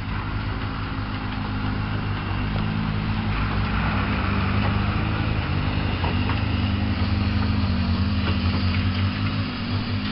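Robey steam traction engine driving slowly past close by: a steady low mechanical hum and rumble with scattered clanks from its running gear, growing louder over the first few seconds as it draws alongside.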